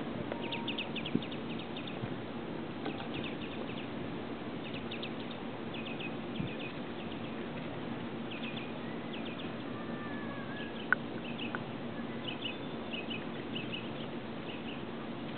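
Small birds chirping in quick clusters of short high notes, over steady outdoor background noise, with a couple of sharp clicks about eleven seconds in.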